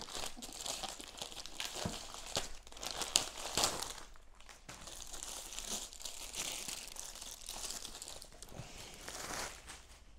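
Plastic packaging crinkling and rustling as it is handled: a white plastic mailer bag and the clear plastic wrap on the box inside it, with scattered sharper crackles. It dies down near the end.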